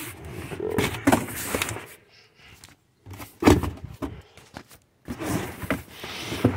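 Crumpled kraft packing paper crinkling and a cardboard box being handled as a package is unpacked, in irregular rustles with two short pauses, and a sharp knock about three and a half seconds in.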